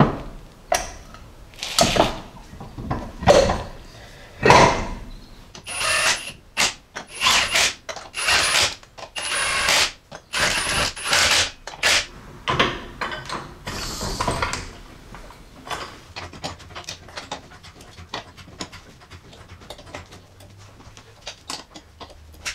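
Hand tools at work on a vehicle's front wheel and suspension: a string of loud, short clanks and bursts for the first dozen seconds or so. After that come quieter, fast light clicks as a wheel is tightened on with a hand wrench.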